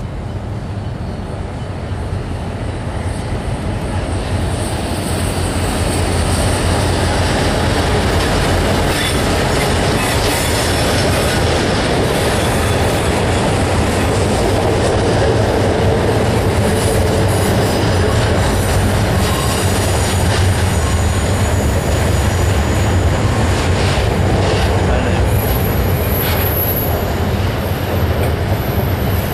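Slow freight train led by three diesel-electric locomotives passing close by: a steady low engine drone with the rumble of rolling wagons, growing louder over the first several seconds as the train nears. A thin, high wheel squeal from the curve comes in near the end.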